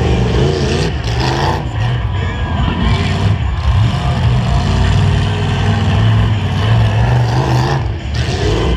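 Demolition derby trucks' engines running and revving loudly and continuously, a heavy low rumble.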